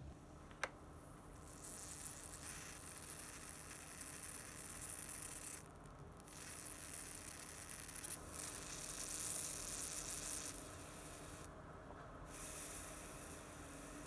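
Electrolytic etching: a wired, electrolyte-soaked cotton swab dabbed over a stencil on a metal plate, fizzing and sizzling as current passes, with the fizz breaking off briefly twice when the swab is lifted. A single sharp click comes about half a second in.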